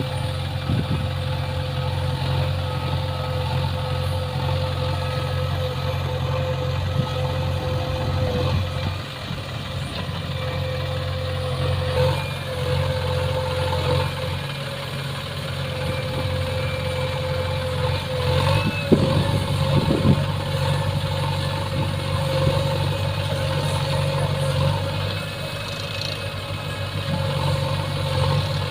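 A heavy machine's engine idling steadily with a steady whine over it, and a couple of short clunks a little past two-thirds of the way through.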